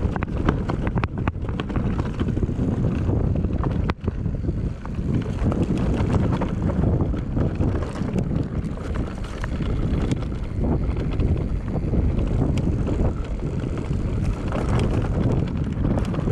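Wind rushing over the microphone during a ride on a rough trail, a steady rumble with scattered rattles and knocks.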